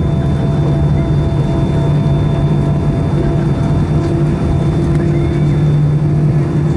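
Airbus A320 cabin during taxi: a loud, steady low hum with fainter higher tones above it. This is the hydraulic pump noise the A320 is known for, which the owner calls really annoying.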